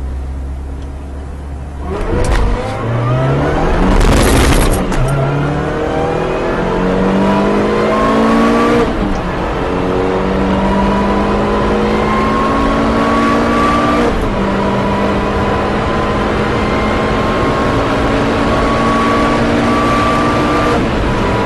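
Supercharged Ford Focus mk1 2.0 engine accelerating hard through the gears. The engine note climbs steadily and drops back at each upshift, about 4.5, 9 and 14 seconds in, and each climb is slower than the last. A loud rushing burst comes about four seconds in.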